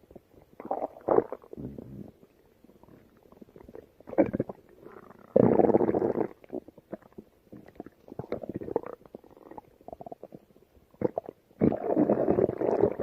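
Stomach growling: irregular gurgles and rumbles, with two longer, louder growls of about a second each, one about five seconds in and one near the end.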